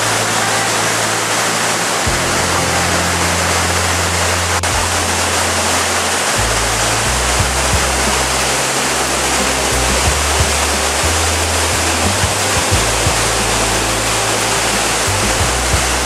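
The Saarburg waterfall on the Leuk, in flood after heavy snowmelt, giving a steady loud rush of falling water. Under it, background music of low held notes changes every few seconds.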